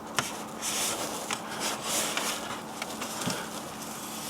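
Soft rustling and scraping with a few small clicks, from hands working an adhesive light strip along the car's plastic interior trim.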